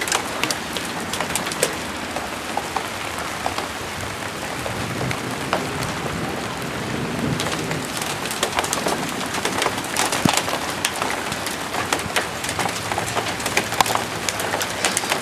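Hailstorm: a steady hiss of hail and rain coming down, with many sharp ticks and clicks of hailstones striking hard surfaces.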